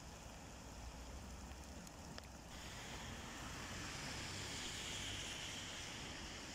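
Steady outdoor background noise, a windy hiss over a low rumble. About two and a half seconds in, the rumble drops away and it switches abruptly to a brighter, hissier noise.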